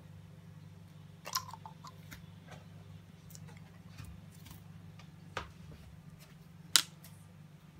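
Scattered sharp clicks and pops from hands working clear slime and handling a small glass bottle of colouring, the loudest about seven seconds in, over a steady low hum.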